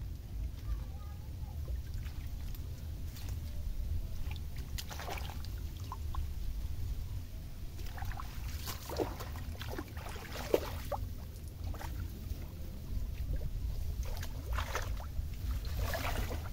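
Water sloshing and splashing in short irregular bursts over a steady low rumble.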